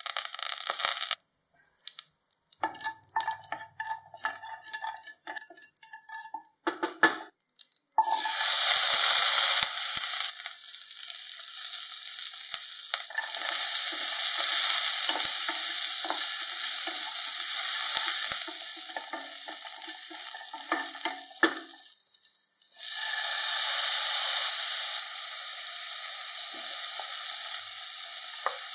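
Tempering in hot oil in a pan: short, irregular crackles for the first several seconds, then a loud sizzle as shallots go into the oil, with a spatula scraping and stirring while they fry. The sizzle drops briefly near the end and flares up again as more vegetables are added.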